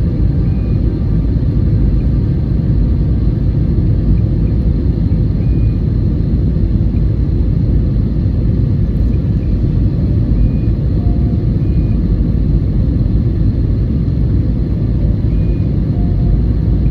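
Steady cabin noise inside an Airbus A321-211 in flight: a loud, even low rumble of airflow and the CFM56 engines, with faint steady engine tones above it and no change in level.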